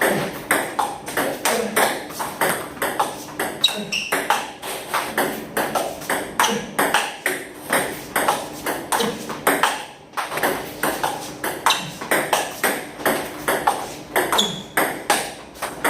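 Table tennis balls clicking off rackets and bouncing on the table in quick succession, several strikes a second, with a short break about ten seconds in.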